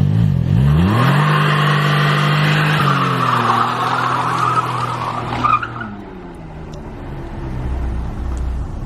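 Car engine revving, then holding a steady note, with a screeching tyre-like noise over it; the engine note fades after about six seconds.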